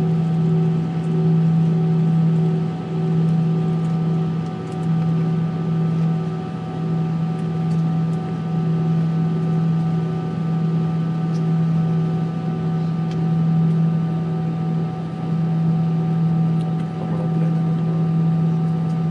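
Airbus A319's jet engine at taxi power, heard inside the cabin: a steady low hum that wavers gently in level, with fainter higher tones and a hiss of cabin air noise.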